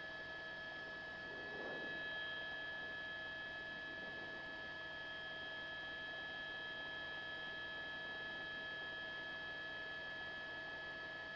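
Faint steady whine made of several constant high tones, the cabin sound of a news helicopter picked up through the reporter's headset intercom. A brief soft rustle on the microphone about two seconds in.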